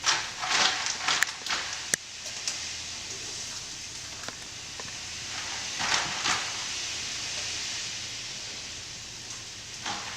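Water splashing and sloshing in bursts as blanched broccoli is scooped out of boiling water and pushed into ice water, near the start and again around six seconds in, with a few sharp clicks, over a steady hiss.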